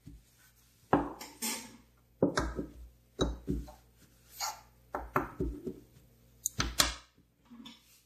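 Handling noise: a metal gas lighter and its parts clacking on a wooden table and against each other, with a paper tissue crumpled and rubbed as they are wiped dry, in a series of sharp knocks and short rustles.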